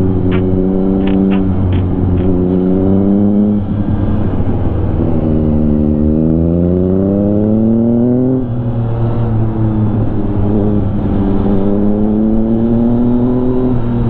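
Yamaha XSR900's inline three-cylinder engine pulling hard through the gears. Its pitch climbs in each gear and drops at upshifts about three and a half and eight and a half seconds in, over steady wind noise.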